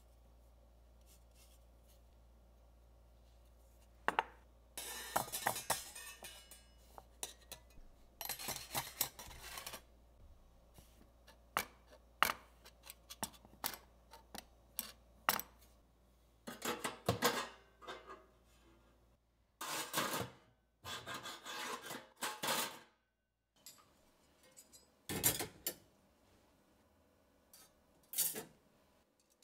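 Metal kitchen utensils clinking and rattling in a perforated stainless steel utensil holder, in scattered bursts of uneven length with short quiet gaps between.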